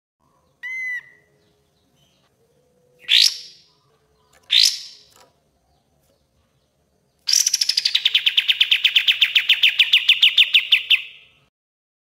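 Kapas tembak bulbul singing. It gives a short note, then two quick upward-sweeping whistles, then a long rapid trill of about six or seven notes a second lasting some four seconds. The trill opens on a high falling note.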